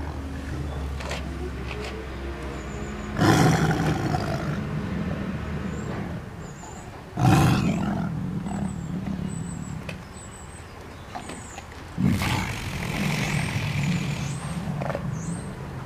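Tiger roaring three times; each roar starts suddenly and trails off over a few seconds.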